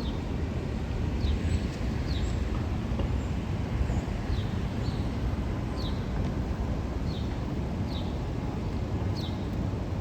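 Steady low rumble of a passing Metro-North M7A electric multiple-unit train, with a small bird's short falling chirps repeating about once a second above it.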